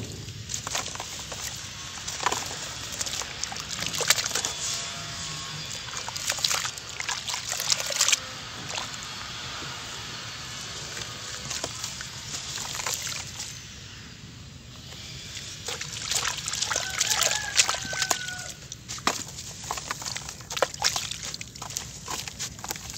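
Wet sand-and-cement chunks crumbling and breaking in hands in a basin of water: uneven gritty crackling with water sloshing and dribbling as the crumbs fall back in.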